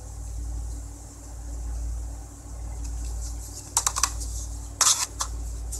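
Knife blade cutting through a bar of soap: a few short crisp snaps a little over halfway through, then a louder cluster of them about a second later, over a steady low hum.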